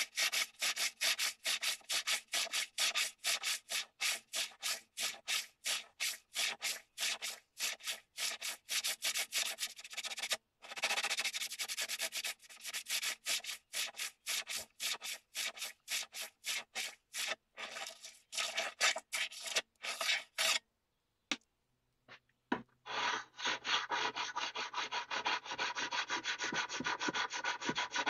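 Rusty steel bayonet blade being scrubbed by hand with an abrasive: quick back-and-forth scraping strokes, about four a second. The strokes stop for a moment about two-thirds of the way through, then start again with a hand file working the blade's edge, duller and with a low hum beneath.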